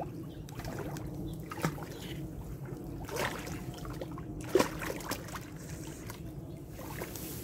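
A big hooked carp thrashing and splashing in shallow water at the bank edge, with a few sharper splashes about one and a half, three and four and a half seconds in: the fish is still fighting, not yet tired.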